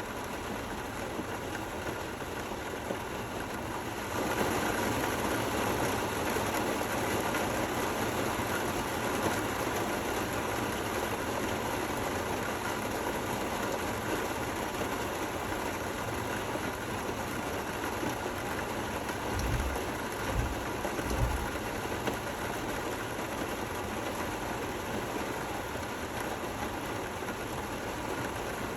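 Steady rain falling, an even hiss that grows louder about four seconds in. Three brief low thumps come a little past the middle.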